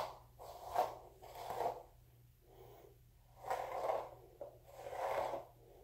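Bristle hairbrush pulled through curly hair, a short rustle with each of a few strokes in the first two seconds, then after a pause more rustling as the hair is gathered by hand.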